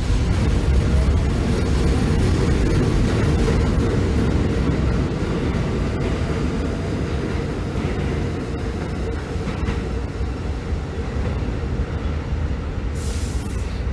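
New York City subway train pulling out along the platform: a loud, steady rumble of wheels on rails that eases a little as it leaves, with a brief hiss near the end.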